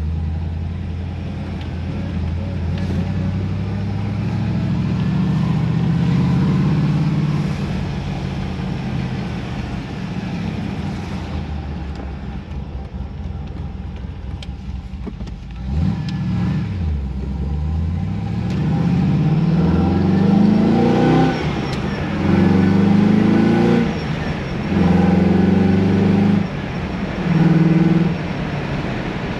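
2003 VY Commodore SS's 5.7-litre V8 driving steadily for about fifteen seconds, then accelerating through several gears of its manual gearbox, the engine pitch climbing and dropping back at each change.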